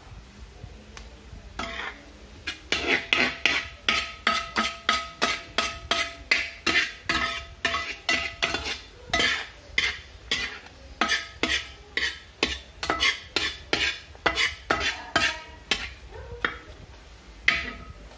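A spoon stirring and scraping onions in a metal pan as they sauté, in quick rhythmic strokes about two to three a second, with the pan ringing faintly between strokes.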